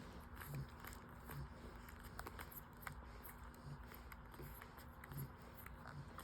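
Newborn French Bulldog puppies suckling: faint wet smacking and clicking, with soft low pulses about once a second and a steady low hum underneath.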